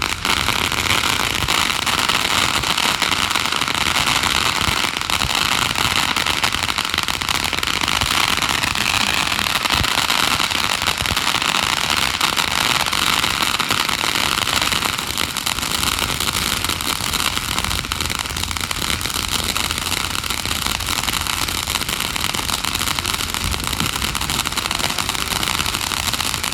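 Fireworks crackling in a dense, continuous stream of rapid pops, easing off a little about halfway through.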